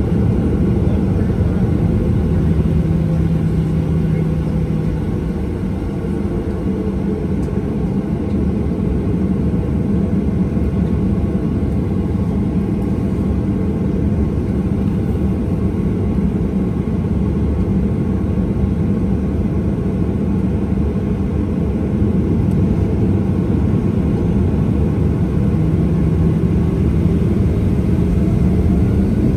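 Boeing 737-800's CFM56-7B turbofans at low thrust while taxiing, heard inside the cabin as a steady low rumble and hum. A faint rising whine begins near the end as the engines start to spool up.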